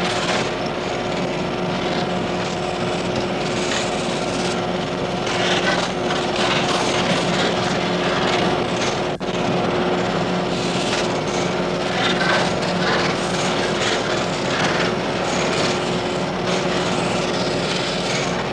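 Steady mechanical hum with a noisy wash over it, running evenly without a break.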